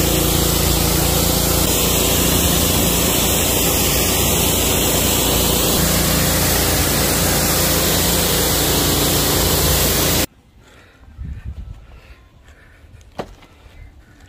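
Gas-engine 3100 PSI pressure washer running, its engine and jet of water spraying hard against a car's body panels. About ten seconds in this cuts to much quieter scrubbing of a soft wash brush on the soapy roof, with one sharp click.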